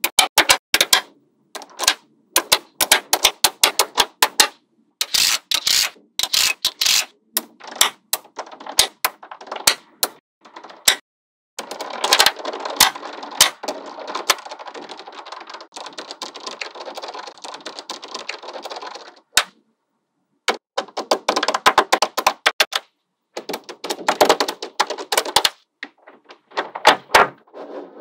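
Small metal magnetic balls clicking and snapping together under the fingers in quick, irregular clicks. About halfway through, a continuous clattering rattle lasting several seconds as the sheet of balls is folded over and the balls roll against one another. After a short pause there are more clusters of clicks.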